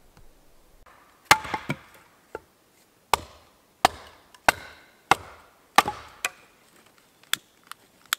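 Axe splitting firewood on a chopping block: a run of about nine sharp chops, roughly one every two-thirds of a second, then a few lighter knocks near the end.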